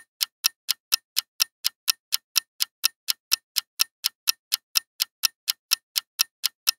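Quiz countdown-timer sound effect: even, clock-like ticks, about four a second, counting down the time to answer.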